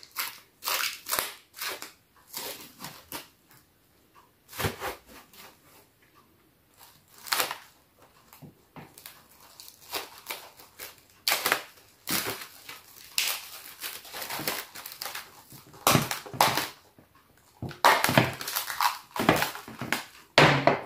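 Plastic cling wrap crinkling and rustling in irregular bursts as it is pulled off the roll, stretched and pressed over a bowl.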